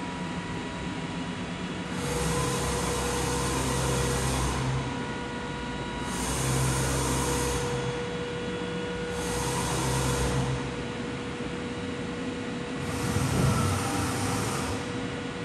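Anayak Performer 2000 CNC bed milling machine running under power as it is worked from its control. Over a steady hum with a faint high tone, four surges of whirring come and go, each lasting one to three seconds. A steady whine sets in at the first surge, about two seconds in.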